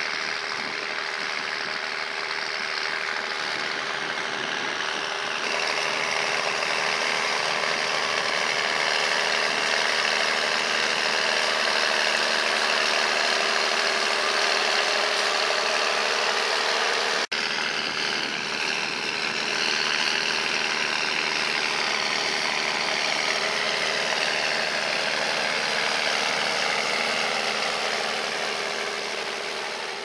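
Massey Ferguson 8480's six-cylinder diesel engine running steadily under load, pulling a six-furrow mounted plough through the soil, heard through a straight-pipe exhaust. The sound drops out for an instant about halfway through, then carries on and fades out near the end.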